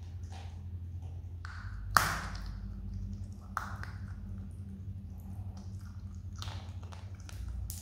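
Himalayan marmot crunching peanuts: a few sharp cracks, the loudest about two seconds in, over a steady low hum.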